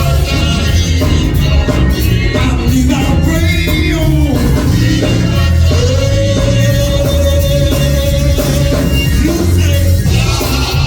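Gospel praise music: voices singing long, sliding notes over a band with heavy bass and a steady beat.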